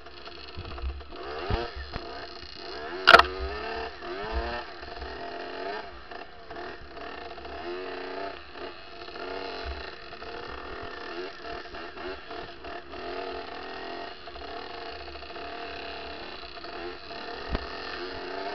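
Kawasaki KX65 two-stroke dirt bike engine being ridden on rough trail, its revs rising and falling constantly with the throttle. A sharp knock about three seconds in is the loudest moment, with smaller knocks around it.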